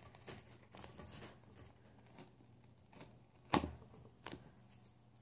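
A small cardboard mailer box sealed with duct tape being handled and picked open: faint scraping and rustling of cardboard and tape, with a sharp knock about three and a half seconds in and a lighter one shortly after.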